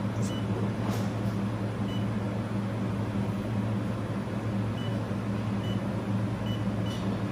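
Steady low hum of a running 2000 W handheld fiber laser welding machine, with about six short high beeps from its touchscreen control panel as keypad keys are tapped.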